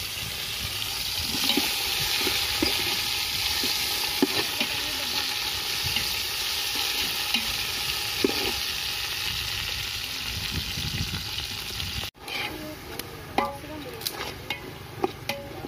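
Mint and coriander leaves sizzling in hot oil with fried onions in a large aluminium pot, stirred with a metal slotted ladle that scrapes the pot. After a sudden cut about twelve seconds in, the sizzle gives way to quieter scattered clicks and scrapes of the ladle in a thick masala.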